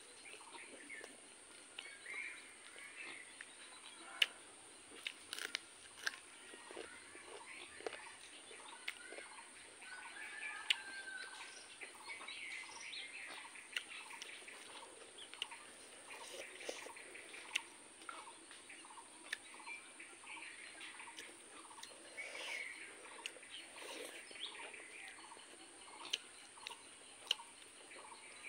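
Eating sounds: soft clicks and smacks of chewing and of fingers mixing rice and curry on a steel plate, with birds chirping now and then in the background and a steady high-pitched whine.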